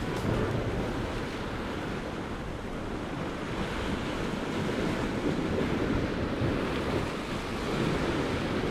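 Sea surf washing against offshore rocks, a steady rushing with slow swells in level, mixed with wind buffeting the microphone.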